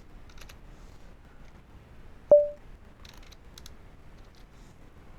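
A few faint clicks from working a computer's mouse and keys. About two seconds in comes one sharp click with a short mid-pitched tone that dies away quickly, the loudest sound.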